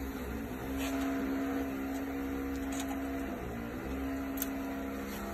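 A steady machine hum that drops out briefly after about three seconds, then resumes. Over it come a few faint metallic clicks of pliers twisting steel tie wire around rebar.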